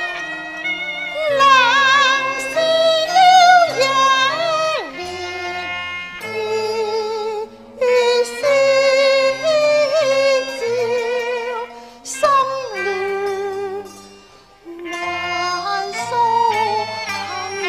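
Cantonese opera music: a high melody line with heavy vibrato and sliding pitches over a lower instrumental accompaniment. It dips briefly near the middle and again about three-quarters of the way through.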